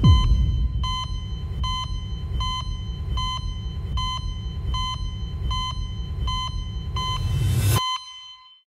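An electronic beeper sounds a short, steady tone over and over, about one and a half times a second, over a low rumble. Both stop suddenly near the end.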